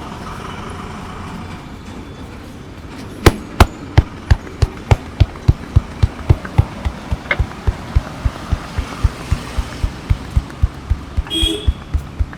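A barber's hands tapping a customer's body in a percussive massage: about three sharp thumps a second, starting about three seconds in, the first few the loudest. Street traffic hums underneath.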